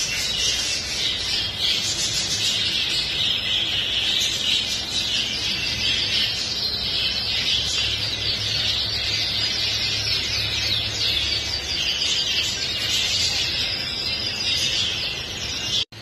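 Many caged canaries singing and chirping at once, a dense, continuous chorus of fast trills and chirps, which cuts off suddenly just before the end.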